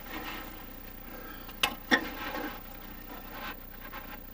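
Quiet scraping and rubbing of hoses and fittings being handled, with two sharp knocks close together about a second and a half in.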